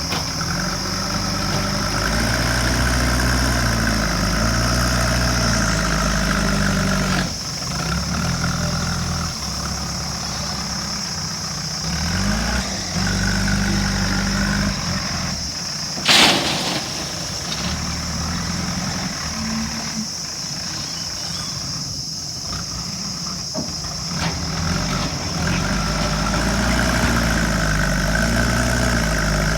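JCB 3DX backhoe loader's diesel engine working, its revs rising and falling as the loader bucket digs and lifts. A single sharp bang about halfway through.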